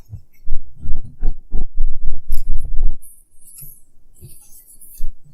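A man chewing a Philly cheesesteak sandwich close to the microphone: low, rhythmic chewing thumps about three a second, then quieter, with a soft hiss of breath near the end.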